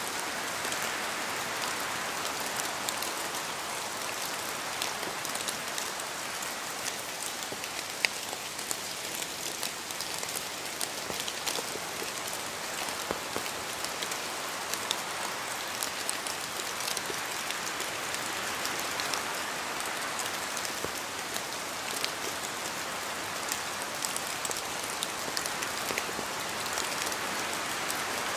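Steady rain falling, an even hiss dotted with the sharp ticks of individual drops striking a surface.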